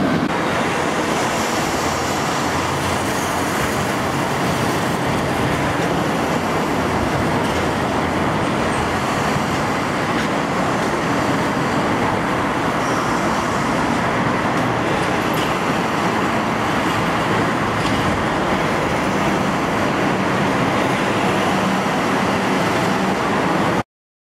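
Steady traffic noise from a busy multi-lane road, cars and trucks passing as one continuous wash. It cuts off suddenly near the end.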